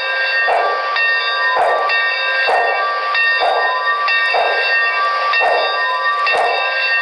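HO-scale Broadway Limited model of Santa Fe 4-6-4 Northern No. 3751 playing its DCC sound decoder's steam exhaust chuffs, about one a second, as it runs slowly. Under the chuffs is a steady hiss with several high whining tones. It comes thin, without bass, from the model's small onboard speakers.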